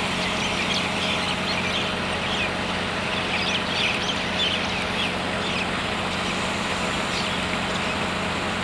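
A group of kept birds calling with many short, overlapping chirps, over a steady low hum.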